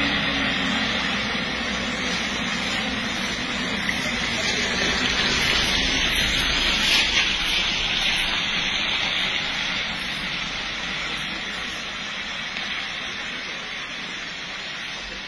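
Steady rushing noise of rain on a wet road, with a vehicle engine running low underneath through the first half. It eases slowly over the last few seconds.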